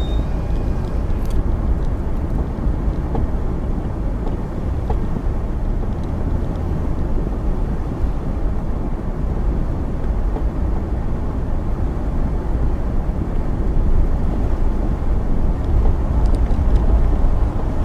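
Steady low rumble inside the cabin of a 2002 Infiniti QX4 driving along a dirt trail: engine, tyre and body noise, a little louder near the end.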